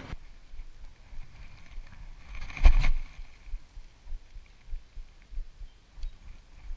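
A short, loud rush of air about two and a half seconds in as a spinning rod is swung to cast. After it come soft, irregular low thumps of wind and handling on the camera microphone.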